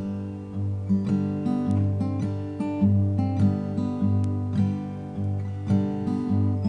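Instrumental guitar passage: chords strummed about once a second, ringing on between strokes, with no singing.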